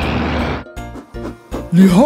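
A steady noisy rumble from the animated garbage truck's engine cuts off about half a second in. Light children's background music with a steady beat follows.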